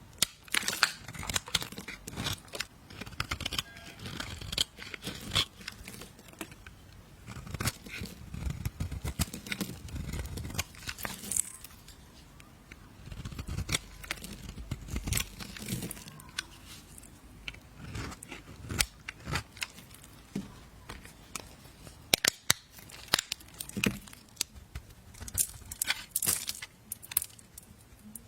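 Knife blade cutting and scraping through soap: irregular crisp crackles, scrapes and clicks, in short runs with brief pauses between.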